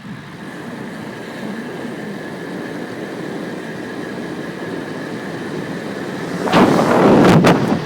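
Steady road noise from a bicycle ride, slowly growing louder, with a faint high whine. About six and a half seconds in, loud wind buffeting on the microphone takes over, ragged and gusty.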